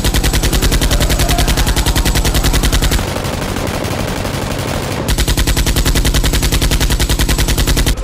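Automatic gunfire sound effect: two long bursts of rapid, evenly spaced shots of about three seconds each, with a quieter stretch between them.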